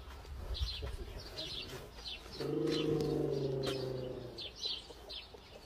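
Small birds chirping again and again, with one steady, low-pitched drawn-out call or hum lasting about two seconds, starting a little over two seconds in.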